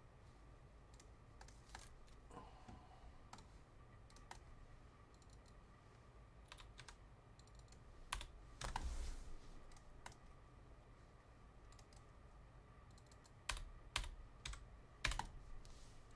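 Faint, scattered typing and clicks on a computer keyboard, with a short louder burst of noise about nine seconds in and a few sharper clicks near the end.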